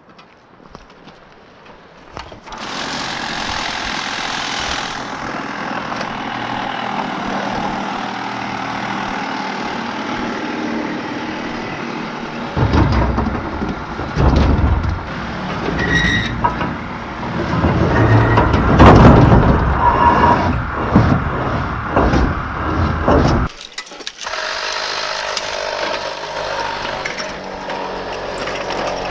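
A cordless power tool running and cutting through steel trailer frame. It starts suddenly, grows louder with irregular knocking and rattling of metal through the middle, then stops abruptly, leaving a quieter steady sound.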